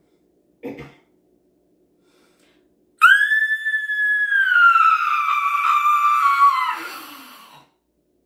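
A woman's high-pitched, screeching roar in imitation of Godzilla. It starts suddenly about three seconds in as one long cry, holds its pitch, then slides slowly downward and fades away.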